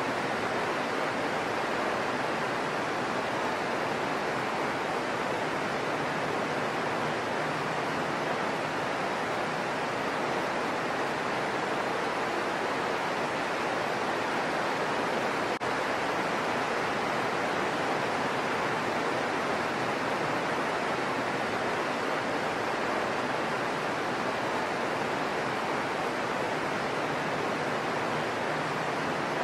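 Heavy rain pouring steadily as an even hiss, with one faint click about halfway through.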